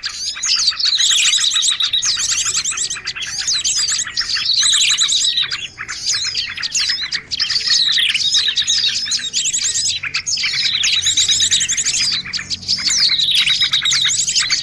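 Small-bird lure recording: a dense mix of small songbirds chirping and trilling at once, with a fast chattering trill and a falling call that comes back every couple of seconds.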